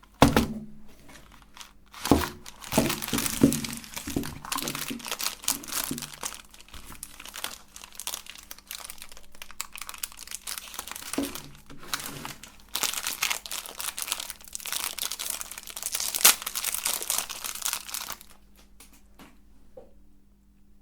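Soap being crushed through a meat grinder: dense crunching and crackling that begins just after the start and stops about 18 s in. A steady low hum runs underneath throughout.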